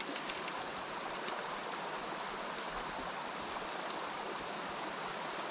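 Shallow stream running over rocks in a riffle: a steady, even rush of water.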